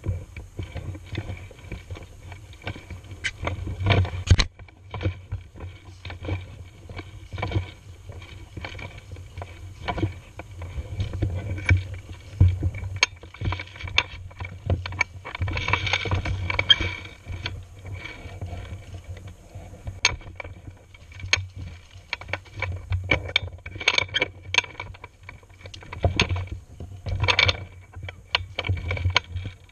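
Footsteps crunching through dry leaf litter, with irregular crackles and low bumps from the gun-mounted camera jostling as the player walks.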